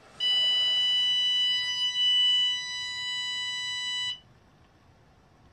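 Our K9 Garnet bark collar's buzzer giving one steady electronic beep about four seconds long, set off by a puff of breath into its sensor hole. It is louder around two seconds in, then quieter until it cuts off suddenly. At this stage of the test the beep comes with the collar's small correction shock.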